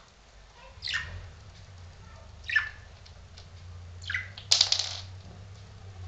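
Budgerigar giving three short falling chirps, then a brief, louder rustling burst about four and a half seconds in.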